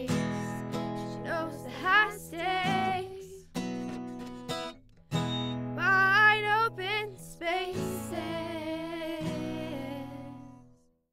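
Girls' voices singing a country song together over strummed acoustic guitar; the song fades out about ten seconds in.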